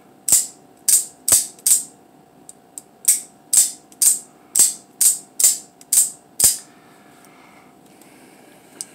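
Out-the-front automatic knife, an Atomic Defender (a Microtech Combat Troodon knock-off), fired and retracted over and over, giving about a dozen sharp metallic snaps of the spring-driven blade slamming open and shut in quick succession. The snaps stop about two-thirds of the way through. The knife is being cycled to test it after its lock failed to unlock.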